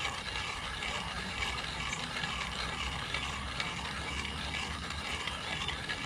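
Hand-cranked coffee grinder being turned steadily, grinding coffee beans with a continuous gritty, ratcheting crunch.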